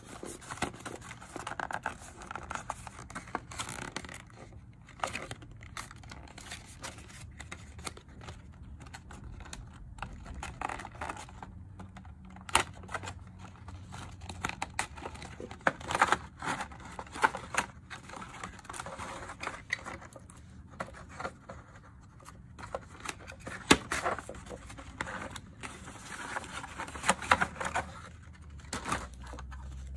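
Paperboard packaging handled close to the microphone: trays and sleeves rustling, sliding and scraping against each other, with scattered sharp taps and clicks, the loudest a few single knocks.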